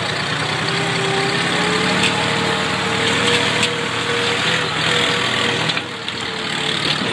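Tractor diesel engine running steadily while pulling, with a brief dip about six seconds in.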